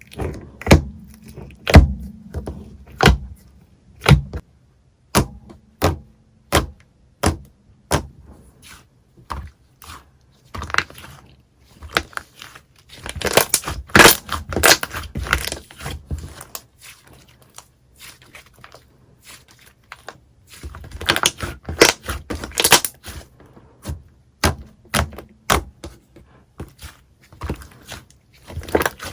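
Slime being pressed and played with by hand: a run of sharp clicking pops about once a second, broken twice by longer stretches of dense crackling.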